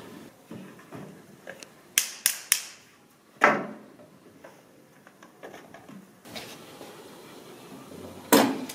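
Handling and setting up puppet-theatre gear: three quick clicks, then a louder knock about three and a half seconds in, and another sharp knock near the end, with quiet shuffling between them.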